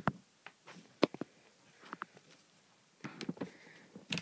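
Quiet room with faint footsteps and handling knocks from a phone carried across a carpeted bedroom: a few scattered soft clicks, with a short cluster about three seconds in.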